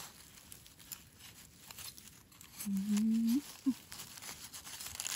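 Dry leaf litter and sandy soil crackling and rustling as a hand digs an egg-stage Amanita mushroom out of the forest floor. A short hummed voice sounds briefly about three seconds in.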